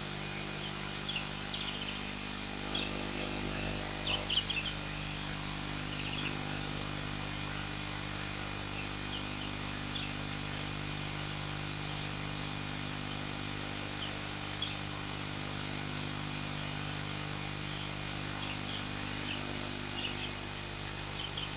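Scattered short bird chirps, bunched in the first few seconds and again near the end, over a steady low hum.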